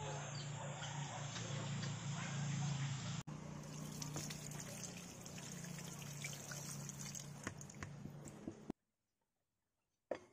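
Tap water pouring and splashing over bagungon snail shells and chopped vegetables in a metal colander as they are rinsed, with a steady low hum underneath. The water stops suddenly about three-quarters of the way through, and a few sharp metallic clicks come near the end.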